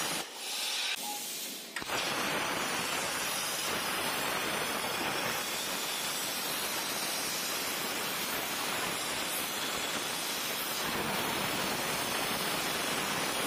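CNC plasma cutter torch cutting thin aluminium sheet: a steady, even hiss of the arc and its air jet. It drops away to a quieter hiss for about a second and a half near the start.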